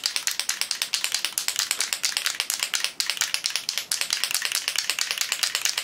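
Aerosol can of WD-40 Long-Term Corrosion Inhibitor being shaken, its mixing ball rattling inside in a rapid, steady rhythm.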